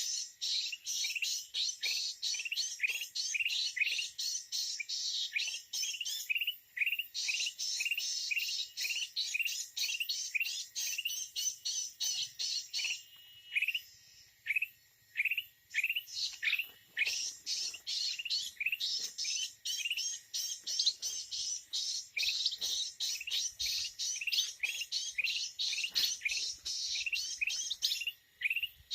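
Bulbul chirping: a dense, rapid run of short rising chirps repeated several times a second, pausing briefly now and then, in keeping with red-eyed bulbuls answering a trapping lure.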